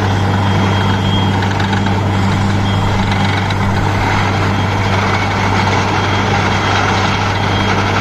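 Borewell drilling rig running steadily: a loud, constant engine drone with dense mechanical noise over it.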